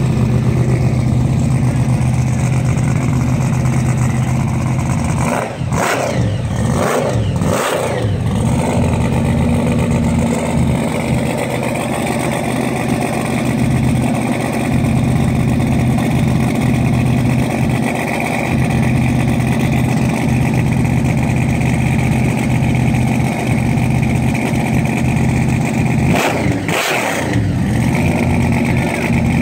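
Supercharged V8 of a blown Chevy II Nova idling, loud and steady, revved in three quick throttle blips about six seconds in and twice more near the end.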